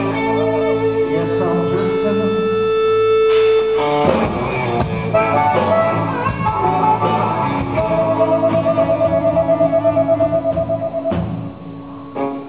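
Live blues-rock band led by an amplified harmonica played into a cupped microphone, over electric guitar and drums. The harmonica holds long notes, then one long note wavers about five times a second before the band drops out near the end.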